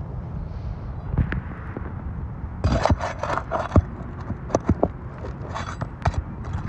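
Asphalt roof shingles scraping and rubbing as they are handled and pried at, in two rasping stretches with a few sharp ticks, over a steady low rumble.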